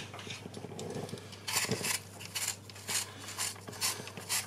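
Vegetable peeler cutting the skin off an apple: a run of short, crisp scraping strokes, about two to three a second, starting about a second and a half in.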